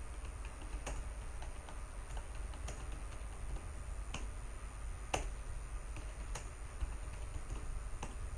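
Computer keyboard being typed on: irregular separate key clicks, a few of them louder, over a steady low hum and a faint high-pitched electronic whine.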